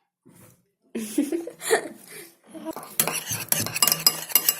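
A stirring utensil clinking and scraping rapidly against a bowl from about three seconds in, mixing a shampoo, shaving foam and salt mixture into slime.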